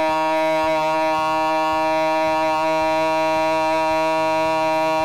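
A man's voice holding one long open 'aah' on a single steady pitch: the vowel of a 'ma' voice warm-up, drawn out as long as his breath allows.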